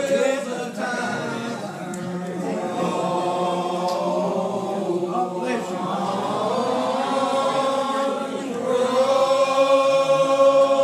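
Old Regular Baptist congregation singing a lined-out hymn without instruments: many voices in slow, drawn-out unison on long held notes that slide between pitches. The singing swells louder near the end.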